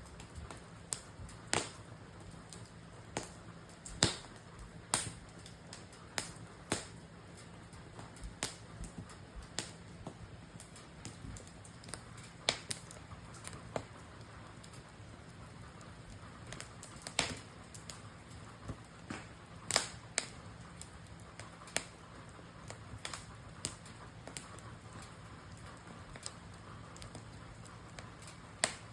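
Wood campfire crackling, with sharp pops and snaps at irregular intervals, about one or two a second.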